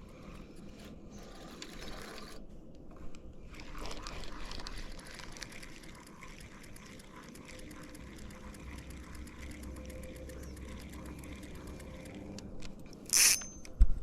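Fishing reel being cranked, its gears ticking steadily as a lure is reeled in. There is a short pause about three seconds in and a loud, sharp burst near the end.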